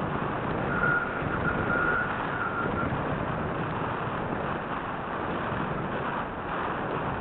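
Steady rush of airflow over a small onboard camera's microphone during flight. A faint high whistle comes and goes through the first three seconds.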